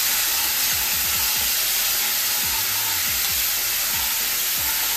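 Ginger paste frying in hot oil with whole spices in a kadai, sizzling steadily while a spatula stirs it round the pan.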